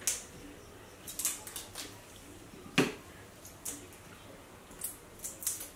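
Scattered small clicks and crackles of hands handling food and tableware, with one sharper click a little under three seconds in.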